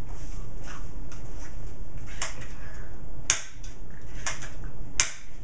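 A few sharp plastic clicks and handling noise from a Nerf Zombiestrike Doublestrike toy blaster being worked in the hands, the two loudest clicks about three and five seconds in, over a steady low hum.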